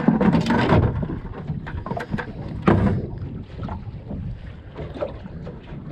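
Wind buffeting the microphone over choppy sea, with irregular slaps and knocks of water against a small boat's hull; a louder gust or slap comes a little under three seconds in.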